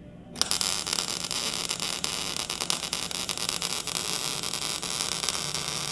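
Electric arc welding of short pieces of steel pipe onto steel angle iron: a steady crackling hiss of the arc that starts about half a second in.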